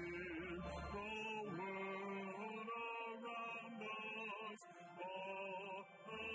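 A hymn being sung, with notes held and then moving to new pitches in a slow, steady melody.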